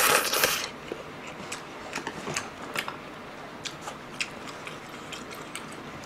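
A loud slurp of noodles and broth in the first half second, then close-up chewing with scattered small clicks and taps.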